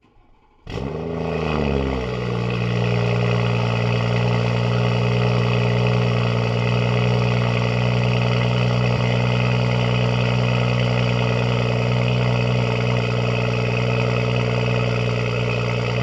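BMW 440i's turbocharged B58 inline-six with a catless downpipe starting up: it catches less than a second in, the revs flare up and drop back, and it settles into a steady idle.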